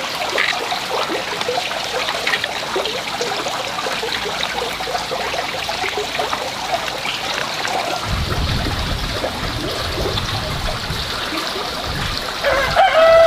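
Water trickling steadily, with a low rumble for a few seconds past the middle; a rooster starts crowing near the end.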